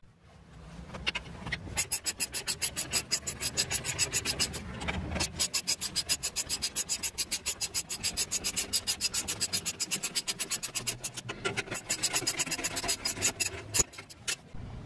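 Hand ratchet wrench clicking rapidly and steadily as its socket runs a brake caliper bracket bolt in, with a few short pauses between strokes.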